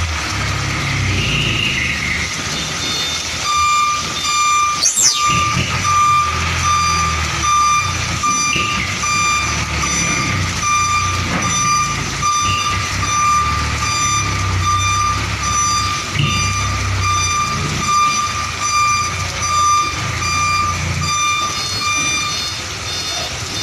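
A Hino 500 diesel container tractor-trailer reversing: its reversing alarm beeps in an even, repeating pattern over the low running of the engine. The beeping starts a few seconds in and stops shortly before the end.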